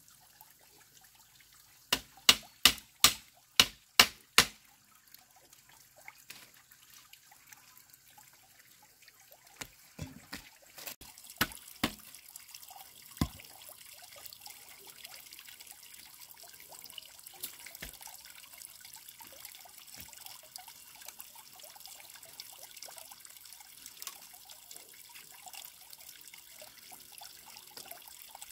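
About eight sharp knocks in quick succession a couple of seconds in, then a few scattered ones, followed by water trickling steadily.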